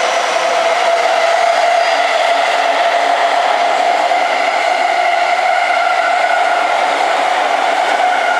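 Keihin-Tohoku Line electric commuter train moving slowly past on the adjacent track, giving a steady high-pitched whine made of several tones over a light rumble.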